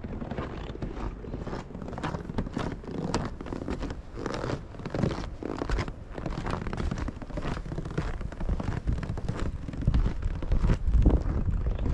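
Footsteps crunching on packed snow, with clothing rustling against the microphone. Wind buffets the microphone with a low rumble near the end.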